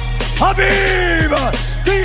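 Background music: long held melodic notes that slide down at their ends, over a deep steady bass.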